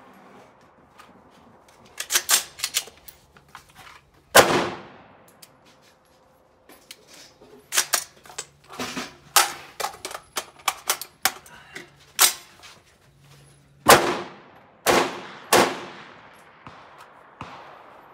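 Rifle gunshots with short echoing tails. One loud shot comes about four seconds in, and a scatter of lighter, quicker cracks follows around the middle. Three loud shots come in quick succession near the end.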